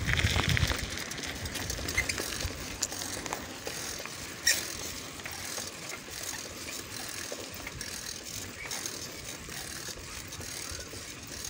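Bicycle rear-hub freewheel ticking as the bike coasts, with a sharp click about four and a half seconds in. Low wind rumble on the microphone in the first second.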